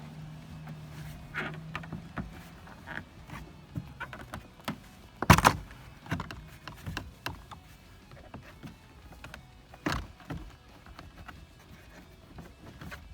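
Hands working on car interior parts: scattered clicks and knocks of plastic trim and metal pieces, with a sharp knock about five seconds in and another about ten seconds in. A steady low hum fades out after about two seconds.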